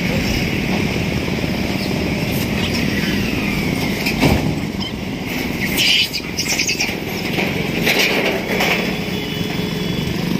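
Road traffic on a highway: a motorcycle passing over a steady road rumble.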